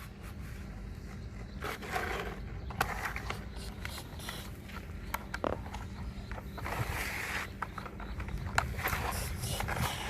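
Sand being scraped and pushed by toy construction machines: gritty scraping with scattered clicks and knocks, over a steady low hum.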